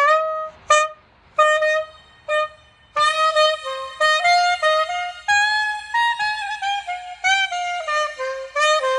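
Curved soprano saxophone with a Van Doren V16 mouthpiece, played through a body-pack microphone and small busker amp with added reverb. Four short notes on one pitch, then from about three seconds in a flowing phrase of connected notes that steps downward toward the end.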